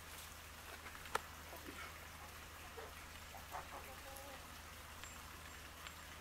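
Faint outdoor ambience: scattered short bird chirps over a steady low hum, with one sharp click about a second in.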